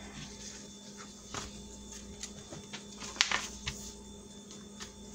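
Sheets of paper and cardstock being handled and laid down on a cutting mat: scattered light rustles and taps, the sharpest about three seconds in, over a steady faint hum.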